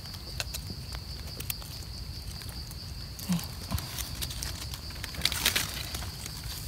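Scattered light clicks and crackles of dry leaf litter, twigs and soil being handled while wild mushrooms are picked, over a steady high insect drone.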